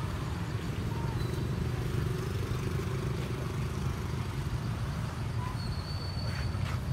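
Steady low rumble of an idling vehicle engine. A faint thin high whistle joins near the end.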